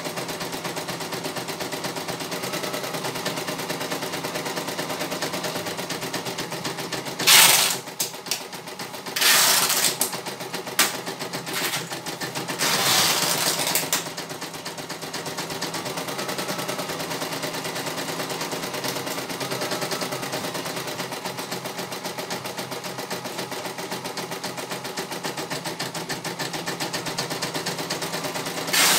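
CNY E900 computerized embroidery machine stitching a design: a fast, even clatter of the needle. A few louder noisy bursts cut in between about seven and fourteen seconds in, and once more near the end.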